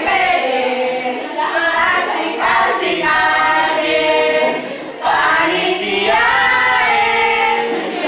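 A small group of young people singing a song together in unison, unaccompanied, with some held notes and a short break about five seconds in.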